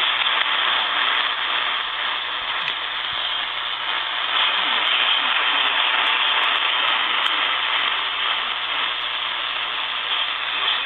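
Radio receiver picking up a weak station: a steady, loud static hiss, with a voice barely audible beneath it as the station relays an Emergency Alert System message.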